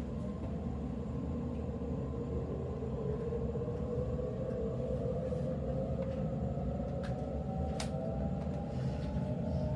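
Sydney Trains Waratah B-set electric train running, heard inside the carriage: a steady low rumble from the wheels and track under a whine from the traction motors that rises slowly in pitch as the train gathers speed. There are a couple of sharp clicks near the end.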